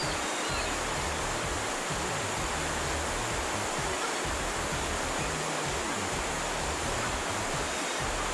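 Mountain river water rushing steadily.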